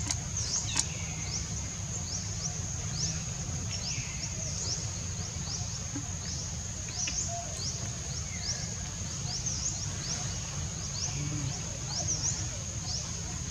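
Insects droning in a steady high pitch, with short rising chirps repeating about once a second, over a constant low rumble.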